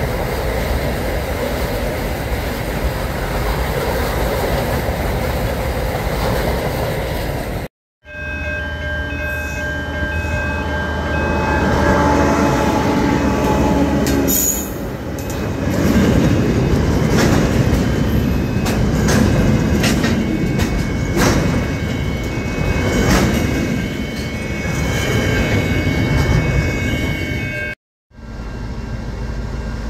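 Freight trains passing close by. Wagons rumble past for the first few seconds. After a cut, diesel locomotives pass with a loud low rumble, and a warning tone repeats for several seconds, with scattered clicks of wheels over the rails. After another cut near the end, a train's rumble approaches.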